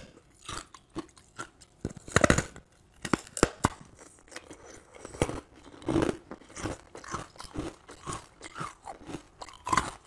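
A person biting chunks off a block of coloured ice and chewing them: sharp cracks as pieces snap off, loudest about two and three seconds in, then irregular crunching.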